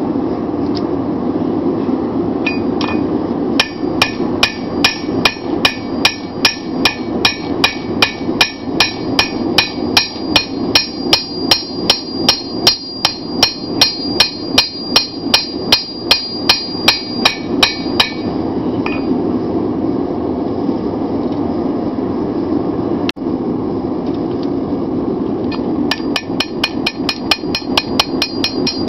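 Hand hammer striking a red-hot 5160 steel seax blade on an anvil, about three blows a second with a ringing tone: the round face of the hammer smoothing out peen marks and evening the width. The blows stop for several seconds past the middle, then start again, quicker, near the end. A steady rushing noise runs underneath.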